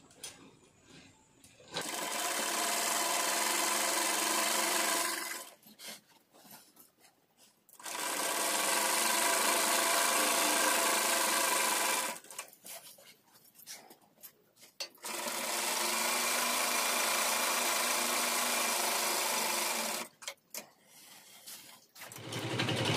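Romer sewing machine, driven by a small electric motor, stitching through a quilt in three steady runs of a few seconds each, with short pauses between them filled by small clicks and handling of the cloth. A fourth run starts near the end.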